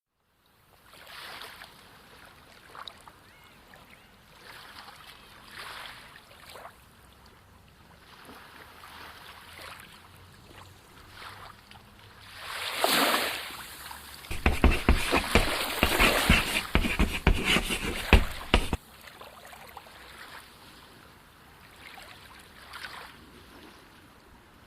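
Sea water: soft waves washing in every second or two, then a loud surge of splashing water lasting about four seconds midway, before it settles back to gentle waves.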